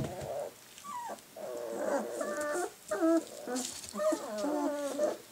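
Three-to-four-week-old Bernese Mountain Dog puppies whining and whimpering: a string of high, wavering cries one after another, several sliding down in pitch, starting about a second in.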